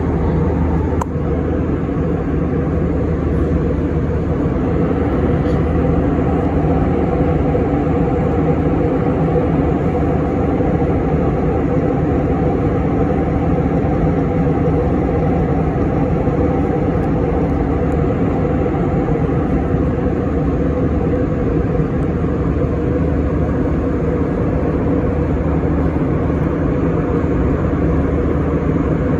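Steady cabin drone of an Airbus A321 in cruise, heard inside the cabin: engine and airflow noise with a low, even hum that does not change.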